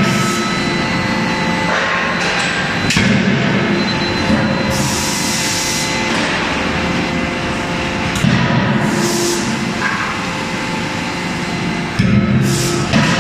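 A fully hydraulic die forging hammer striking hot steel in its dies: several heavy blows a few seconds apart over a continuous loud machine din with a steady hum and short bursts of hiss.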